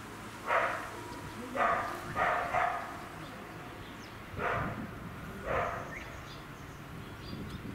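Short animal calls, six in about five seconds: one about half a second in, three close together between about one and a half and three seconds, and two more at about four and a half and five and a half seconds.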